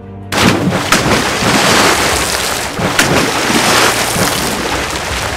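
Cartoon attack sound effect: a loud rushing whoosh like surging water or wind that starts abruptly, with sharp cracks about a second in and again about three seconds in, fading near the end. It goes with curved spikes shooting up to cage a flying opponent.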